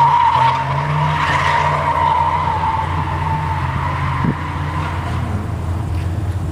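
Car drifting: its tires squeal in a long screech that sinks slightly in pitch and fades out over the first three seconds, over the steady hum of its engine.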